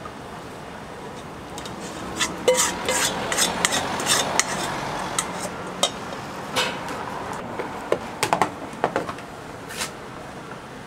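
Spatula scraping and knocking against a stainless steel bowl as thick tteokbokki sauce is emptied out of it into a steel tray. There is a busy run of short clatters and scrapes, with a quick cluster of knocks near the end.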